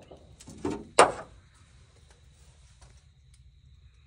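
A short rustle, then one sharp knock about a second in, with a faint steady high whine and low hum underneath.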